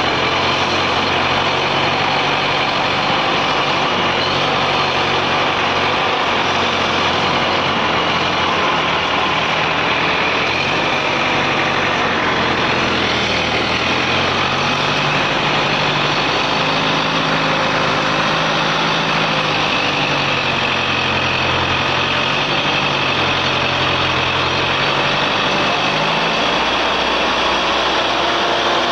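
Diesel engine of an ACE 12XW hydra crane running steadily under load while it lifts a tipped truck trailer, its pitch shifting in steps, with a faint high steady whine on top.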